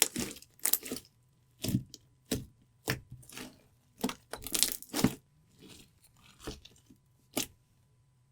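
Clear slime being squeezed and pressed by hand, giving a string of short crackling squelches, about a dozen, irregularly spaced, which stop about a second before the end.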